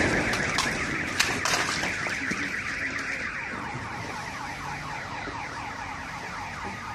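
A car alarm sounds as a rapid series of falling electronic chirps, repeating several times a second and fading over the first few seconds. A few sharp clicks come in the first second and a half.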